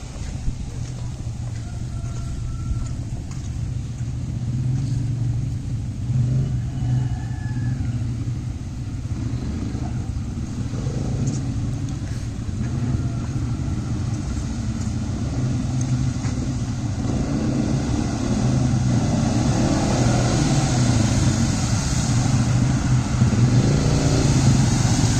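Quad bike (ATV) engine running at low speed, a steady low drone that grows louder toward the end.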